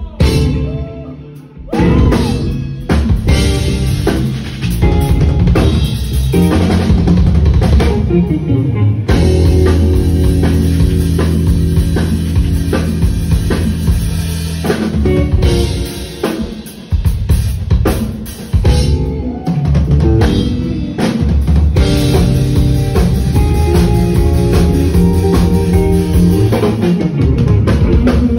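Live jazz-fusion band playing: an electric guitar and a drum kit with bass, the kit prominent. After a brief drop in level the full band comes back in about two seconds in and keeps playing.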